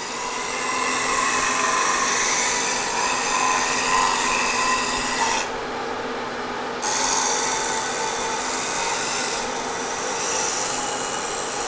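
Vertical milling machine spindle turning a half-inch solid carbide end mill at 1300 RPM, taking a light skim cut through a solid-state drive's circuit board and epoxy-covered chips. A steady gritty cutting hiss runs over the spindle's hum. About halfway through, the cutting hiss drops away for about a second, then resumes.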